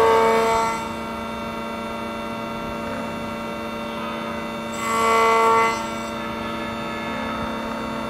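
Key cutting machine's cutter running steadily while cutting a Tibbe key. Twice, at the start and again about five seconds in, it rises to a louder, higher whine for about a second as the cutter bites into the key blade.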